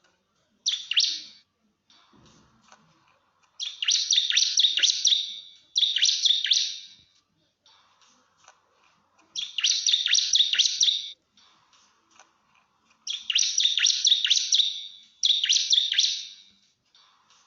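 Bar-winged prinia (ciblek) singing its fast 'nembak' song: bursts of rapid, sharp, high chirps, each one to two seconds long, repeated about six times with short pauses between.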